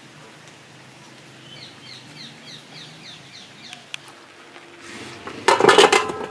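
A small bird calls a quick run of short, falling chirps, about four a second. Near the end comes the loudest sound: peeled potatoes tipped from a steel bowl into a steel pot of water land with a loud splash.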